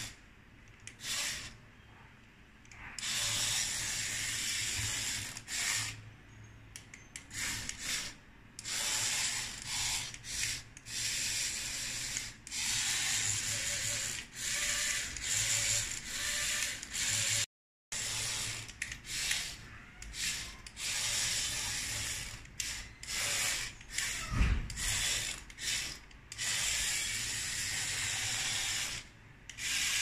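Remote-control toy cockroach's small geared motor and leg mechanism running in many short stop-start runs as it is driven to crawl. There is a low thump about three-quarters of the way through.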